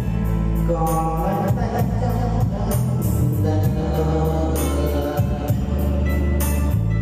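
Backing music playing with a steady beat, a sustained bass line and a melody line, with no words sung.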